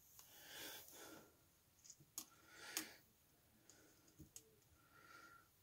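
Very faint clicks and soft scrapes of a chopstick stirring coffee in a travel mug.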